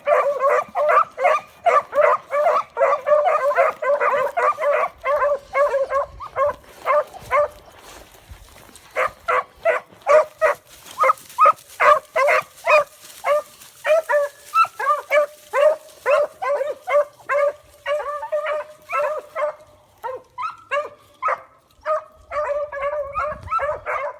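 Puppies yipping: rapid runs of short, high-pitched yelps, several a second, with brief lulls about eight seconds in and again near twenty seconds.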